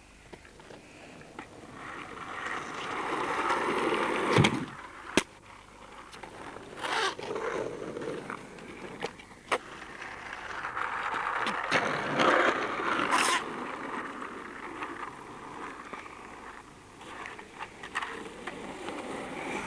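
Skateboard wheels rolling on asphalt, a rushing noise that swells and fades in waves. Several sharp clacks from the board break through it.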